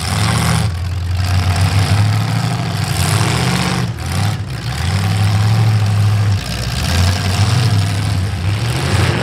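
Engines of several V8 demolition derby cars running loud and revving in a steady din, dipping briefly a few times.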